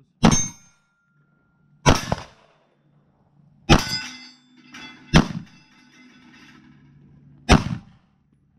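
Five pistol shots fired at steel targets, spaced about one to two seconds apart. The shot about four seconds in is answered by a steel plate ringing with a clear metallic tone that lasts a few seconds: a hit.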